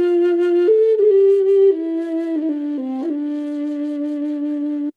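Recording of a quenacho, a large, low-pitched Andean end-blown flute, playing a slow phrase of held notes: it steps up, then down note by note, and settles on a long low note that cuts off suddenly near the end.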